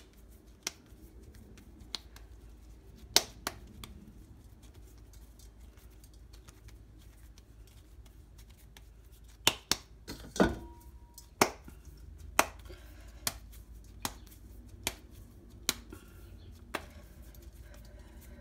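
Hands working a ball of stiff dough, pressing and turning it between the palms, with scattered sharp clicks and taps. These are few at first and come about once a second in the second half. One tap about ten seconds in is followed by a short metallic ring.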